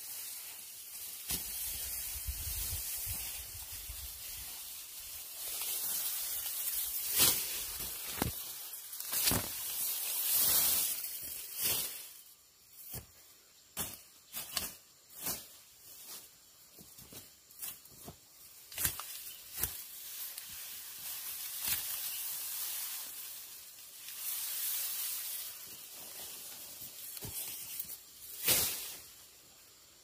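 Irregular chopping strikes of a short bladed hand tool cutting into soil and wood beside a log, about twenty sharp knocks, most of them from a quarter of the way in to near the end, over a steady high hiss.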